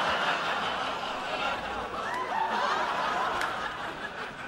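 Studio audience laughing, one sustained wave of laughter that starts to die away near the end.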